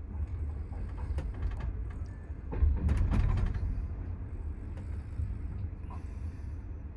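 Type 25G soft sleeper passenger car heard from inside as the train runs, a steady low rumble with scattered clicks, then a louder run of clacks and knocks from the wheels on the track about two and a half to three and a half seconds in.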